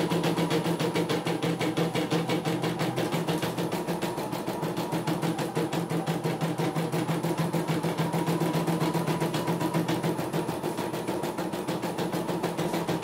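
CNY E900 computerized embroidery machine running an embroidery design: a fast, even ticking of needle strokes over the steady hum of its motor.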